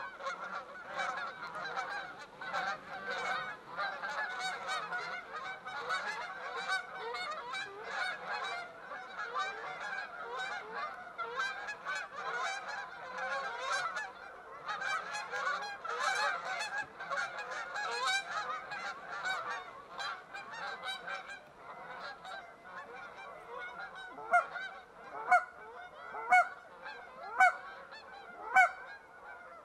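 A flock of Canada geese honking and clucking, many calls overlapping, thinning out toward the end. In the last few seconds, louder single honks come about once a second.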